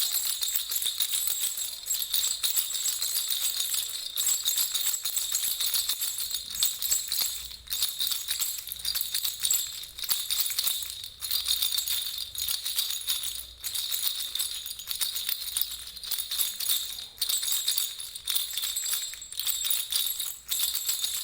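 Baby rattle (jhunjhuna) shaken continuously, a bright, high jingling with short breaks every few seconds.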